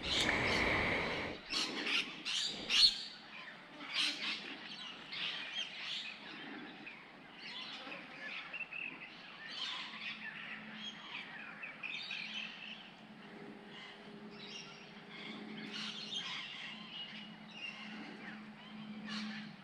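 Wild birds chirping and calling, many short chirps one after another, with a few sharp clicks in the first few seconds. A faint steady low hum comes in about halfway.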